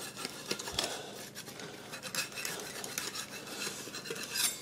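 Metal pizza cutter jabbed and scraped under the crust of a freshly baked pizza to loosen it from the pan: an irregular run of light scrapes and clicks.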